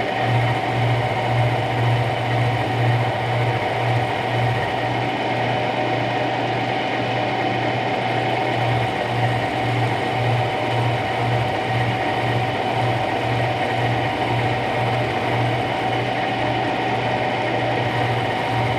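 Milling machine running under power and cutting a new governor cross shaft: a steady machine hum with an even low pulsing.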